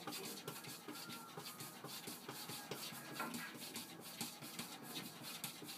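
A cat pawing and scratching at a closed wooden door: a quick, uneven run of soft taps and claw scrapes on the wood, several a second.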